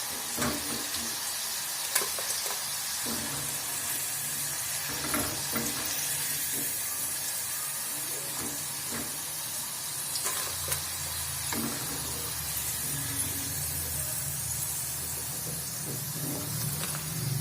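Fried bitter gourd slices sizzling steadily in hot oil on a tawa, with scattered clicks and scrapes of a utensil lifting the pieces out. A low hum comes in about three seconds in and grows louder after about ten seconds.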